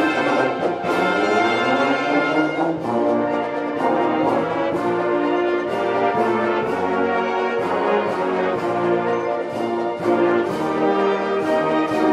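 A marching band playing: trumpets, saxophones and sousaphones carry a brass melody over regular drum and cymbal hits.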